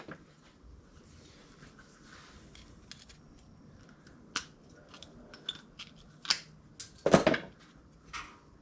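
Scattered light clicks and metallic taps as a small steel patch piece and a hand tool are handled and fitted against a bicycle fender. A louder clatter comes about seven seconds in.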